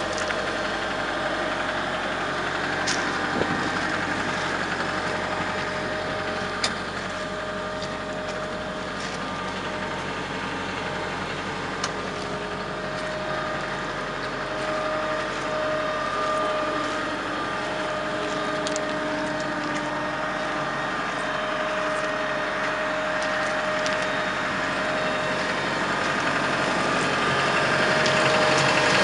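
Cat M315D wheeled excavator's diesel engine idling steadily, with a few sharp clicks, growing louder near the end.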